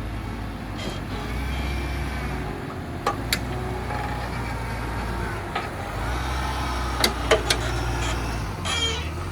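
A four-wheel drive's engine running with a steady low drone that dips briefly a few times. Several sharp knocks sound about three seconds in and again around seven seconds in.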